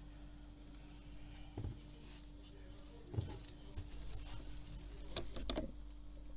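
Hands working dough on a silicone baking mat: soft thumps about a second and a half in and again about three seconds in, with light rubbing. A short burst of crisp rustling comes near the end, over a faint steady hum.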